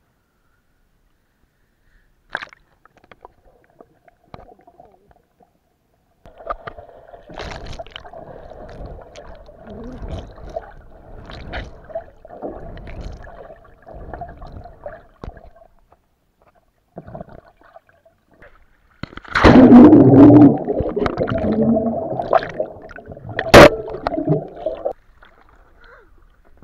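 Water sloshing and gurgling in two stretches, the second louder, with a sharp knock near the end.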